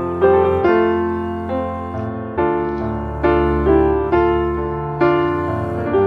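Background piano music. A new chord or note is struck about once a second and left to fade before the next.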